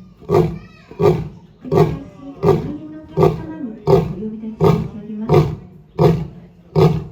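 Indian (Asiatic) lion roaring: a steady series of short, deep roars, about one every 0.7 seconds.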